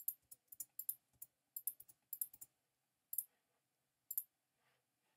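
Faint clicks of a computer keyboard and mouse: a quick, irregular run of clicks over the first two and a half seconds, then two single clicks about a second apart.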